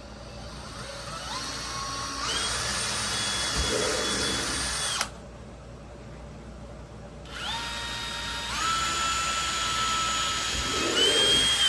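Cordless drill drilling rivet holes in a plastic kayak hull: two runs of a whining motor, each spinning up and then holding a steady pitch, the first stopping suddenly about five seconds in and the second starting a couple of seconds later and running until the end.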